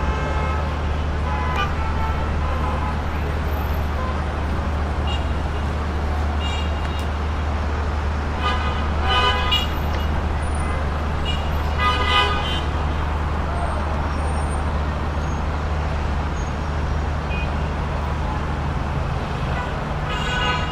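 City traffic jam: a steady low rumble of idling and crawling car engines, with car horns honking, most clearly twice, about nine and twelve seconds in.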